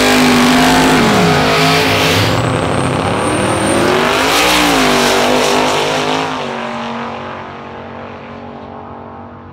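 Twin-turbo LS V8 of a Holden Commodore drag car running hard. Its pitch dips about a second in and climbs again around four seconds, with a thin high whistle for about a second and a half near the three-second mark. The sound fades away over the last few seconds.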